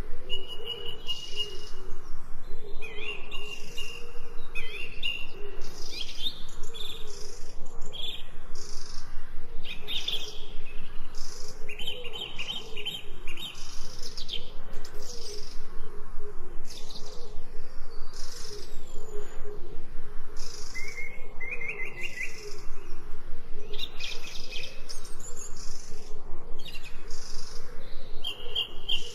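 Several birds chirping and trilling in a steady chorus of short, repeated high calls, with a low wavering sound running underneath.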